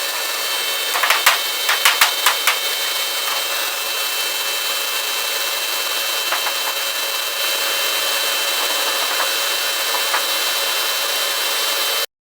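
An electric power tool running steadily with a high whine, worked on the steel hood's sheet metal, with a quick run of sharp clicks and knocks about one to two and a half seconds in.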